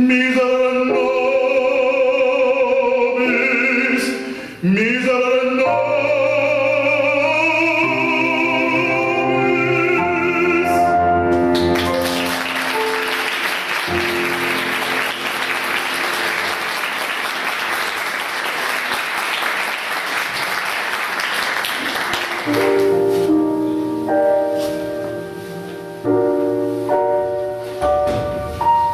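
A male operatic voice with vibrato sings the end of a solo with piano, closing on held notes. Applause follows for about ten seconds. A piano then starts the next piece.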